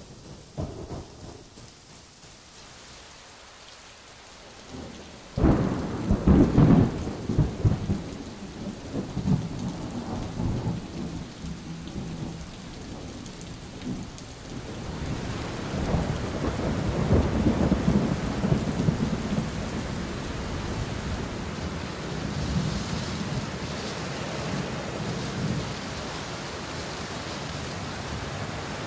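Thunderstorm: a sudden crack of thunder about five seconds in that rumbles on, a second roll of thunder later, and steady rain hissing through the second half.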